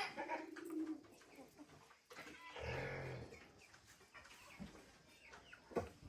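Farm animals calling, chickens among them: a short low call near the start and a longer call about two and a half seconds in, with a few sharp knocks near the end.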